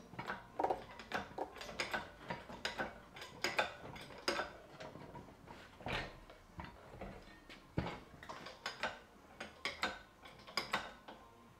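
Irregular metallic clicks and clanks from a workshop engine crane and the Audi 1.8T engine hanging from it as the engine is turned round by hand.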